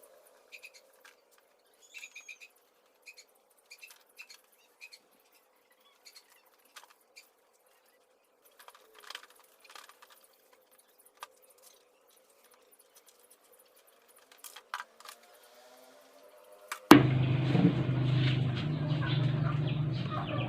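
Scattered faint clicks and knocks of plastic scooter fairing panels and their fasteners being taken off, with a few bird chirps in the first seconds. About seventeen seconds in, a much louder steady noise with a low hum cuts in abruptly.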